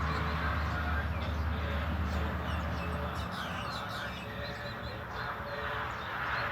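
Birds chirping in quick, high, short calls over a steady low hum that stops about halfway through.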